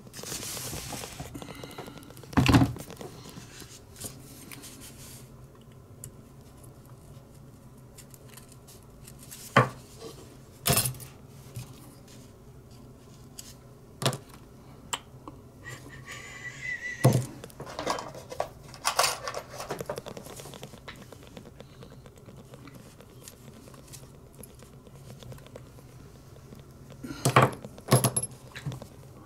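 Irregular light clicks and taps of a small metal punch and tiny lighter-valve parts being handled and set down on a hard work surface, about a dozen in all, loudest about two seconds in and near the end.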